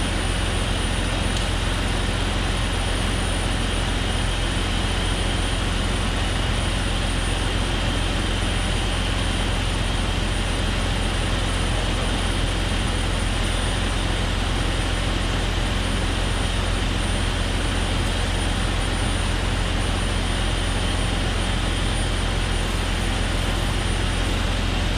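Jeep Cherokee XJ's 4.0-litre inline-six idling steadily, with a constant hiss of air from a cracked vacuum line. The hiss is the sign of the vacuum leak.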